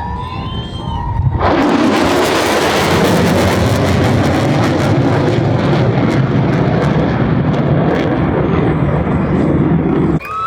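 Loud aircraft engine noise, a dense steady rush that starts suddenly about a second and a half in and cuts off abruptly near the end.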